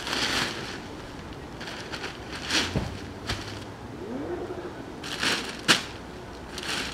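Plastic sheeting rustling and crinkling in short, irregular bursts as it is handled, with one sharper knock about five and a half seconds in.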